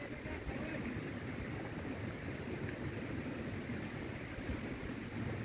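Steady outdoor rushing noise of wind and water, with no distinct event. A faint thin high whine comes and goes over it.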